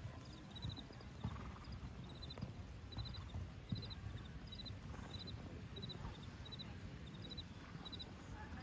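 Horse's hooves thudding on sand arena footing as it canters a course of jumps, the beats coming irregularly about once a second.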